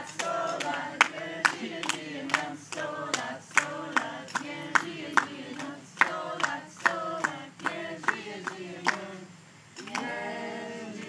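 A small group singing together while clapping in time, at about two claps a second. The singing and clapping stop briefly near the end, then the singing starts again.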